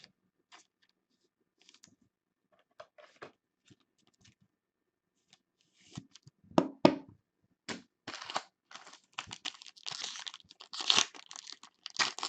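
Scattered faint clicks and rustles of handling. From about six seconds in comes a trading-card pack's wrapper being torn open and crinkled, with a few sharp loud rips.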